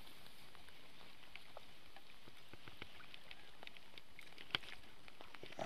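Light rain falling: a steady hiss with scattered drops ticking irregularly, and one sharper tick about four and a half seconds in.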